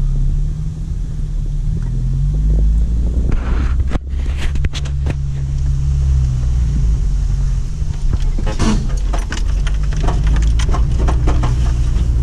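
Off-road vehicle's engine running and its tyres rumbling over a rough dirt track, heard from inside the cabin, the engine note rising and falling a little. Clusters of short knocks and rattles come about four seconds in and again from about eight seconds, as the vehicle goes over bumps.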